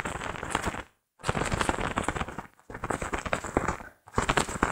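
A fabric glove shaken hard by its two edges, flapping in quick crackling flutters, in bursts of about a second with brief pauses between. It is a foley imitation of a bird's wings flapping.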